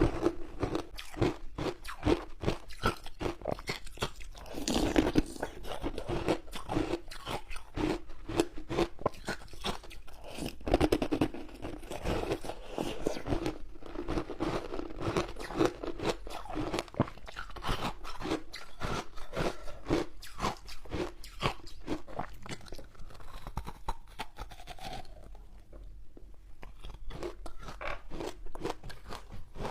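Close-up crunching and chewing of frozen ice in the mouth: a dense run of crisp, rapid crunches, easing to a quieter stretch a few seconds before the end.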